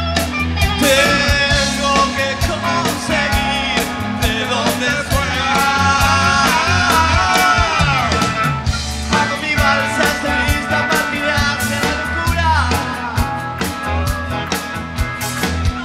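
A live rock band playing an instrumental break, with drums, bass and organ under a lead electric guitar line whose notes bend up and down.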